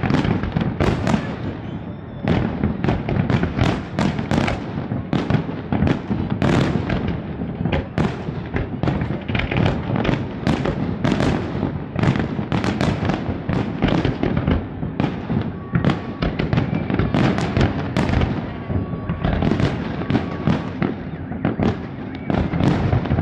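Large fireworks display: many bangs in quick succession, several a second, overlapping into a continuous low rumble.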